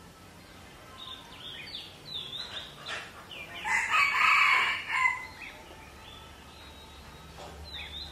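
A rooster crowing once, about four seconds in and lasting over a second, the loudest sound here. Short, high bird chirps come now and then before it.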